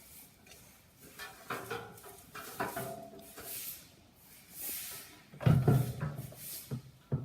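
Giant panda hiccuping: a few short, sudden sounds, the loudest about five and a half seconds in and another near the end.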